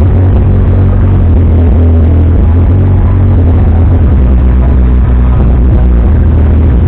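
Loud electronic dance music with a heavy, steady bass.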